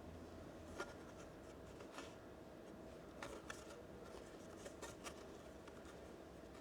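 Faint handling noise: a few light clicks and short rustles, scattered irregularly over quiet room tone.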